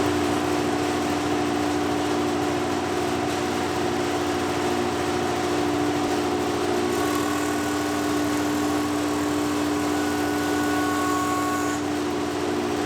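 Woodworking jointer running at full speed: a loud, steady machine whir with a constant hum. From about seven seconds in to about twelve, a higher whine joins in.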